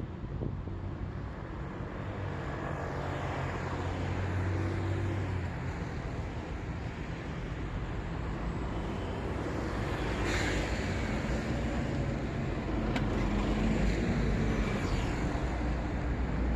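City road traffic: a steady rush of cars passing, with low engine hum swelling as vehicles go by and a sharp click about two-thirds of the way through.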